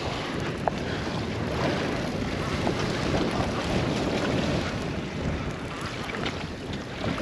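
Wind rushing over the microphone and the sea washing against the hull of a small boat on open water, a steady rushing noise.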